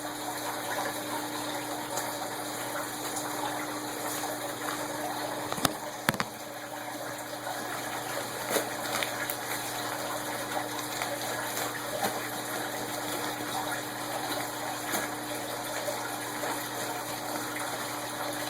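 A mailed package being unwrapped: continuous rustling and crinkling of packaging, with scattered small clicks and two sharp snaps about six seconds in, over a faint steady hum.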